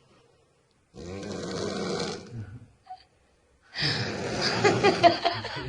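A woman snoring: two long snores about three seconds apart, the second louder and fluttering.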